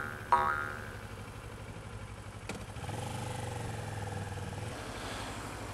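A last cartoon 'boing' sound effect sounds about a third of a second in and dies away, then a Kawasaki ER-6f's 650cc parallel-twin engine runs on; its note grows louder about three seconds in and eases off near five seconds.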